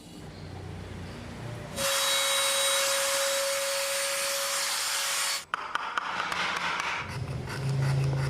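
A power tool running against wood with a steady whine for about three and a half seconds, cutting off suddenly, followed by irregular scraping and rubbing on wood with small clicks.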